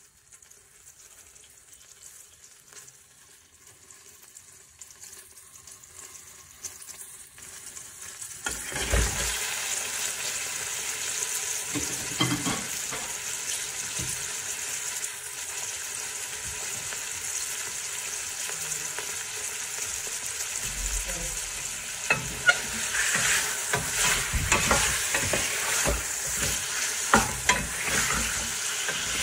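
Raw meat sizzling in hot oil in a stainless steel pressure cooker. After a faint start, the sizzling sets in suddenly about a third of the way in as the meat goes into the pan and continues steadily, with scattered knocks near the end as the pieces are moved in the pot.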